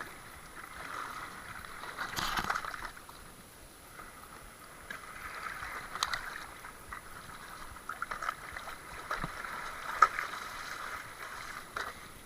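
Water splashing and sloshing in patches, with a few sharp clicks or knocks about 2, 6 and 10 seconds in.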